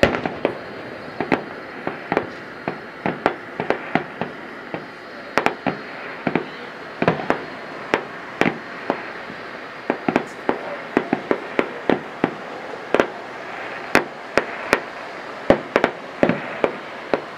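Aerial fireworks display: dozens of sharp bangs and pops at irregular intervals over a steady background hiss, coming thicker in the second half.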